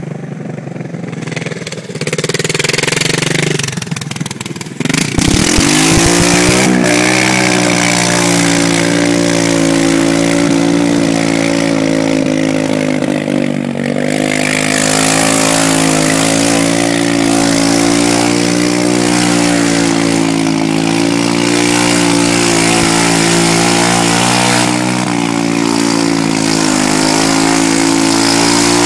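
Honda ATC 200 three-wheeler's single-cylinder four-stroke engine running hard as it drives through flooded swamp water. The engine gets louder and its pitch rises about five seconds in, then holds steady, easing off briefly twice. A hiss of water spray runs over the engine.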